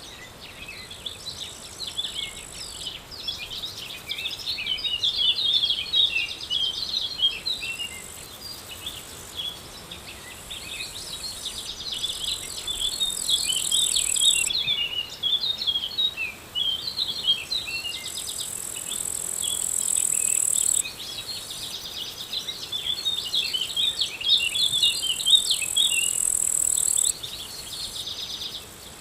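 Many small birds chirping and twittering densely, with an insect's high, steady trill that starts and stops several times, each spell lasting a few seconds.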